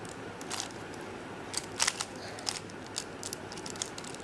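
A 3x3 Rubik's cube being turned quickly by hand: its plastic layers click and clack at irregular intervals, a few times a second.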